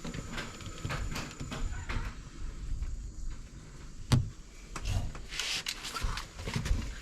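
Spline roller pressing rubber spline and mesh into a window screen frame: scattered rubbing and small clicks, with one sharp knock about four seconds in.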